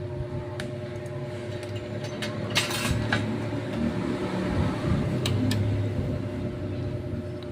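A few light clicks and clinks of small metal tools being handled, with one short scrape about two and a half seconds in, over a steady electrical hum.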